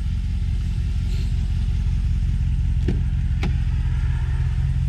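Lifted 2020 Ram 1500's 5.7-litre Hemi V8 idling with a steady low rumble, and two sharp clicks about three and three-and-a-half seconds in as the driver's door is unlatched and swung open.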